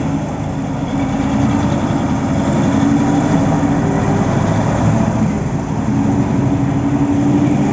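Heavy engine of piling-site machinery running steadily at an even pitch.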